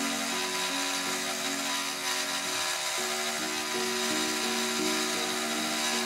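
Solo piano music, a slow melody of changing notes, over the steady high whine and hiss of a CNC milling spindle cutting a printed circuit board.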